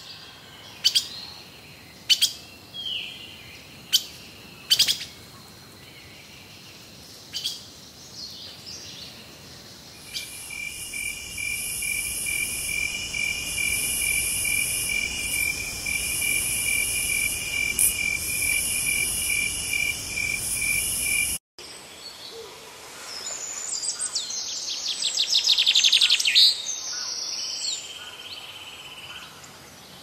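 Forest wildlife recordings spliced together: sharp single bird chirps for the first ten seconds, then a steady, evenly pulsing insect trill that cuts off abruptly. After that comes a songbird's rapid trilling song that grows louder and then fades.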